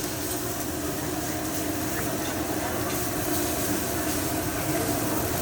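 Steady background din of a busy hibachi restaurant dining room: a continuous even rumble with no clear voices.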